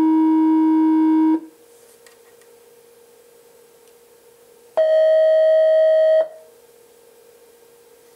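Eurorack VCO, a 1222 Performance oscillator, sounding a steady note that cuts off about a second and a half in, then a second, higher note, roughly an octave up, held for about a second and a half near the end. The notes are being checked against a tuner for C while the oscillator is calibrated.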